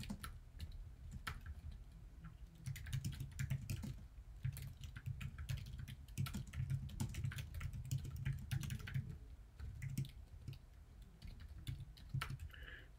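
Typing on a computer keyboard, in quick runs of keystrokes with brief pauses between them.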